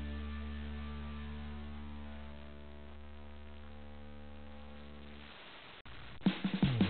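Background music: a held low chord slowly fading away, then after a short break the music starts up again with plucked notes near the end.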